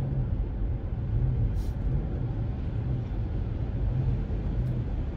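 Steady low road and engine rumble of a car being driven, heard from inside the cabin, with a brief high hiss about one and a half seconds in.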